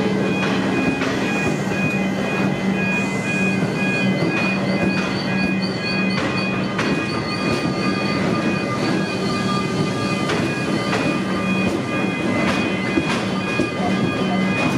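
Electric suburban train running slowly on the line: a steady rumble with a steady whine from the train's own equipment and a high wavering squeal from the wheels. Irregular clicks come from the wheels passing over rail joints.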